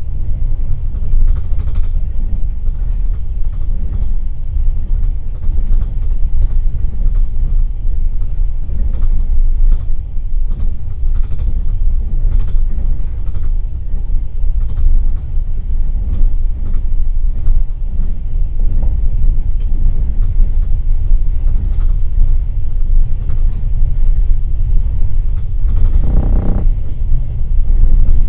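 Passenger train running at speed, heard from inside a sleeper carriage by an open window: a steady low rumble with frequent clicks and knocks from the wheels and car. About two seconds before the end a short pitched tone sounds for about a second.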